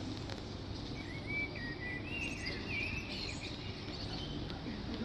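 Steady outdoor background noise, with a faint run of high, warbling chirps starting about a second in and lasting about two seconds.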